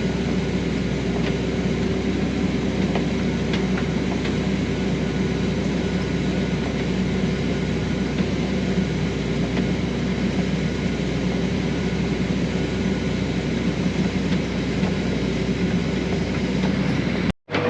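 Combine harvester running steadily while picking corn, a constant low mechanical hum. It cuts out for a moment near the end.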